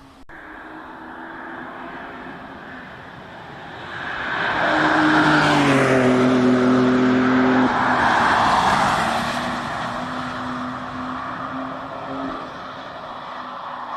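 Kia EV9 electric SUV driving past at speed with no engine sound, mostly tyre and road noise that swells to a peak in the middle and fades away. A tone drops in pitch as it goes by.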